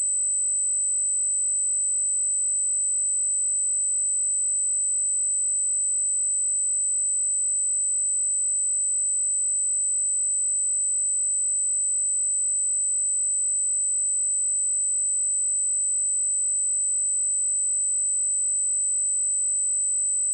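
Pure 8052 Hz sine-wave test tone, a single steady high-pitched whistle that holds the same pitch and loudness throughout.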